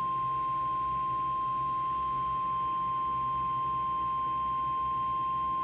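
Weather radio sounding its 1050 Hz warning alarm tone: one steady, unbroken pure tone, the attention signal that comes just before a tornado warning broadcast.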